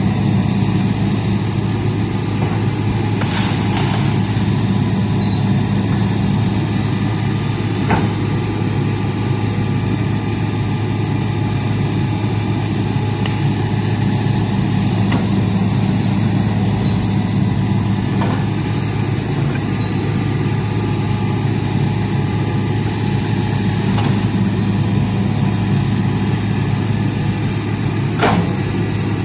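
Hitachi excavator's diesel engine running at a steady speed, with a few faint sharp knocks.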